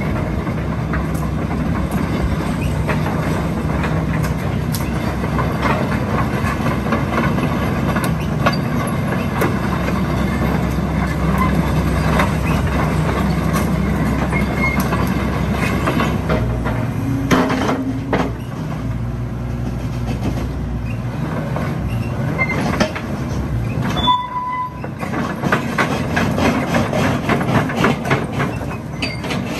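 Hitachi ZX130L-5B crawler excavator travelling on its steel tracks: the diesel engine runs under a continuous clanking of the track chains, with a few short squeaks.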